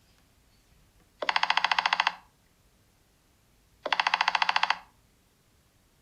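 A Nothing Phone (1) ringtone playing from the phone's speaker: a pitched tone stuttering at about a dozen pulses a second, in two bursts of about a second each, spaced about two and a half seconds apart.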